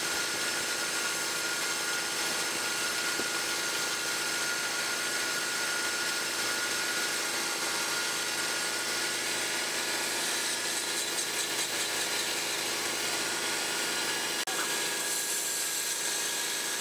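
Wood lathe running steadily while sandpaper is held against the spinning wooden goblet, a constant motor hum under a hiss of sanding. A short click about fourteen and a half seconds in, after which the sound changes slightly.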